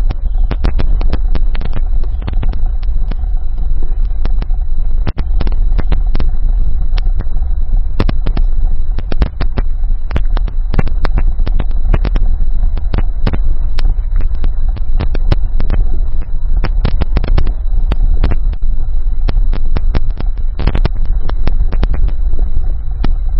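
Crackling static from a loose connection in the rear microphone: dense, irregular clicks and pops over a heavy, steady low rumble, with a thin, steady high whine underneath.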